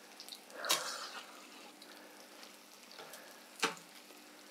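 Faint stirring of Knöpfle dumplings in a steel pot of water coming to the boil, with a long metal spoon. A soft knock about a second in and a sharper click of the spoon against the pot near the end, over a faint steady hum.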